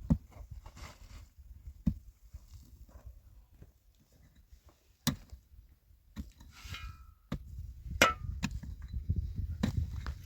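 Scattered sharp knocks and clanks, about four spread across the stretch, with a scraping, faintly ringing sound just before the loudest clank about eight seconds in.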